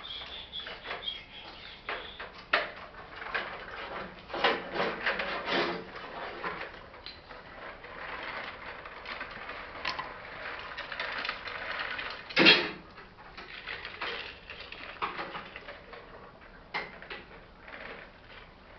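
Irregular mechanical clicking and clattering, with one loud knock about twelve and a half seconds in.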